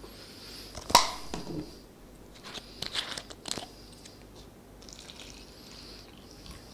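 Sharp clicks and knocks with some crinkling, from objects being handled: one loud click about a second in, then a cluster of short clicks around three seconds in.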